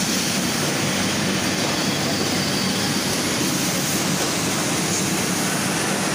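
Steady machine running noise with a constant low hum, from an automatic elastic cutting machine's electric motor feeding elastic tape.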